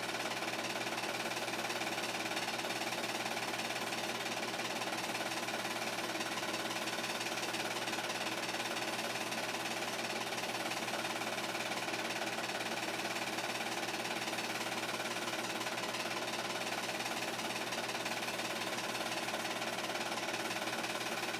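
8mm film projector running: a steady, unbroken mechanical clatter from its film-advance mechanism.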